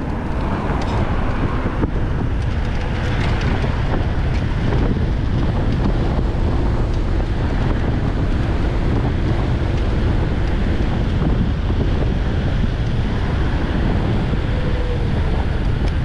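Steady wind noise buffeting the microphone while riding an electric moped.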